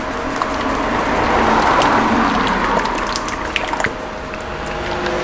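Engine oil pouring from a bottle into an engine's oil filler, a steady gushing pour with small splashy clicks that swells about a second in and eases near the end.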